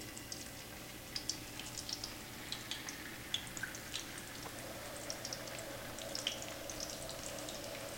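Raw potato wedges frying in a pan of hot oil: light sizzling with scattered small crackles and pops.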